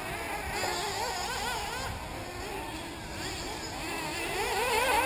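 Several 1/8-scale nitro RC buggy engines racing together, their high-pitched whine repeatedly rising and falling as they accelerate and brake. The sound grows louder near the end.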